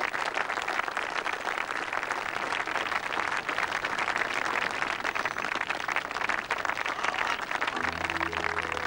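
Crowd applauding, a dense steady clapping. Near the end, music comes in with low held notes.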